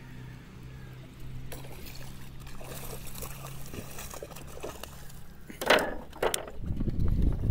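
A hooked toman (giant snakehead) thrashing at the surface, its splashing churning the water, with two sharp, loud splashes about two thirds of the way through. A low rumble follows near the end.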